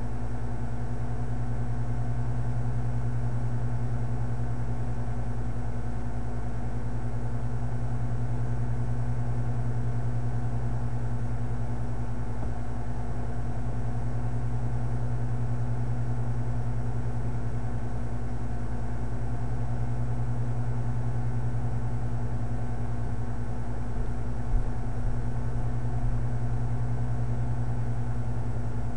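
Steady low hum with a faint hiss underneath, unchanging throughout, with a few faint knocks near the end.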